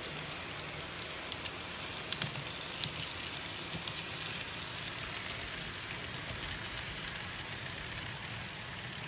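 N-scale model train running along the layout's track: a steady hiss and whir, with a few faint clicks in the first three seconds.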